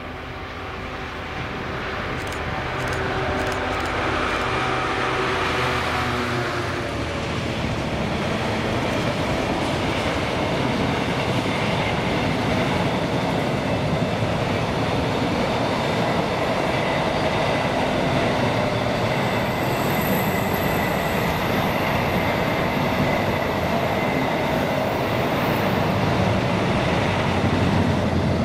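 Class 66 diesel freight locomotive approaching and passing, its two-stroke V12 engine note growing louder over the first several seconds. It is followed by the long, steady rolling noise of a freight train's wagons going by, with a faint high wheel squeal in the second half.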